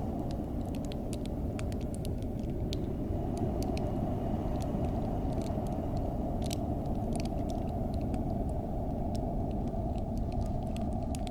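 Cold wind blowing as a steady low rumble, with scattered sharp crackling ticks of a frost-crackle effect.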